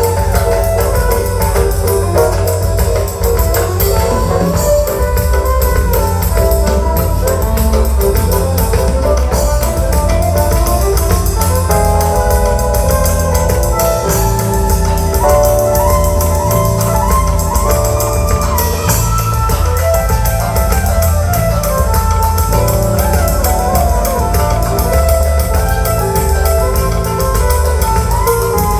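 Live band playing an instrumental passage: a melodic lead of held and moving notes, with an organ-like keyboard sound, over a strong, steady bass beat.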